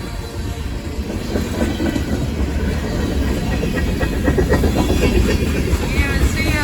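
Freight cars of a long CSX freight train rolling past, a heavy rumble with wheels clattering over the rails, growing louder. A few brief high squeals come near the end.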